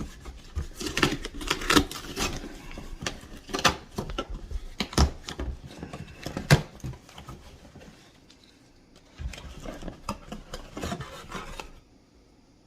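Packaging and protein powder containers being handled: irregular rustling, scraping, clicks and knocks, with a brief lull just past the middle and a second stretch of rustling that stops suddenly near the end.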